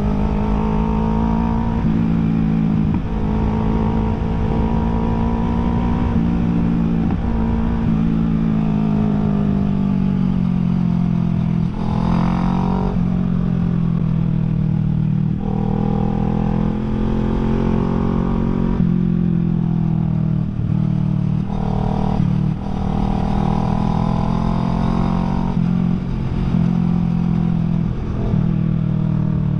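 Kawasaki Ninja 650 motorcycle engine running under way at fairly steady revs, with a dense low wind rumble on the microphone. The engine note shifts and briefly breaks a few times, around the middle and again about two-thirds of the way through.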